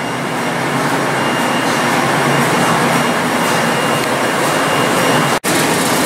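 Steady loud roar of plating-line equipment, air-moving fans and blowers running, with a low electrical hum and a faint high whine. It cuts out for an instant near the end, then carries on.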